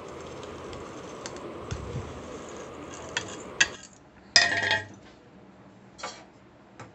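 Dry-roasted whole spices tipped from a plate into a stainless-steel mixer-grinder jar: light ticking of seeds on steel, then a loud ringing metal clank about four and a half seconds in, followed by a couple of single clinks.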